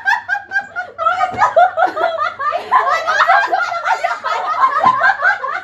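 Several people laughing hard together, a continuous stretch of quick, high-pitched giggling and cackling.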